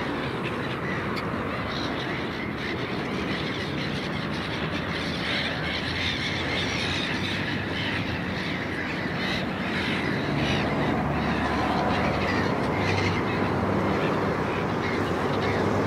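Black-headed gulls calling in short, irregular cries as the flock squabbles over food, heard over a steady rushing noise that grows slightly louder in the second half.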